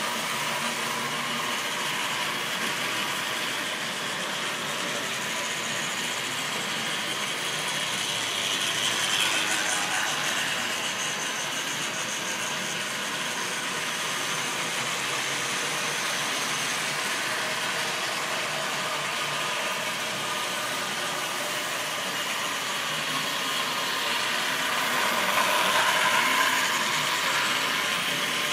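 OO-gauge model trains running on the layout: a steady mechanical running noise of wheels on track and locomotive motor gearing, swelling twice as trains pass close by, about nine seconds in and again near the end.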